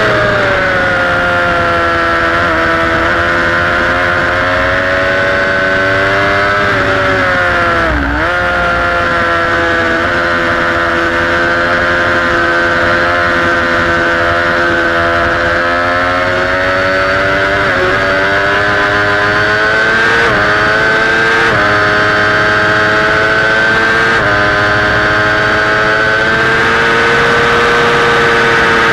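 Sport motorcycle engine running at high revs, recorded from the bike itself while lapping a race track. The engine note holds high and steady, drops sharply about eight seconds in and climbs straight back, and dips briefly several times later on.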